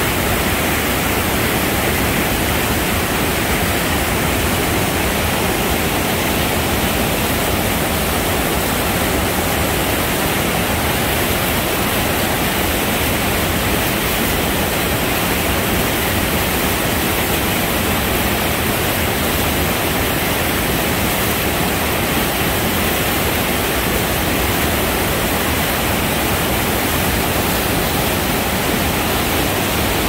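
Steady, loud rush of white water cascading over rocks in a series of small falls.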